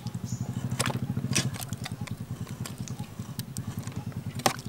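Metal tongs clinking against a steel cooking pot a few times as boiled chicken feet are lifted out, the sharpest clink near the end. Under it a small engine runs steadily with an even low pulse.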